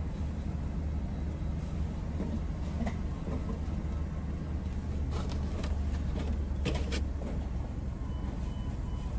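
Car engine idling, heard from inside the cabin as a steady low hum. There are a few brief knocks and rustles about halfway through.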